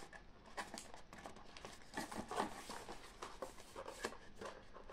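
Light rustling and crinkling of paper packaging and small tea sachets being handled, with scattered small taps and clicks.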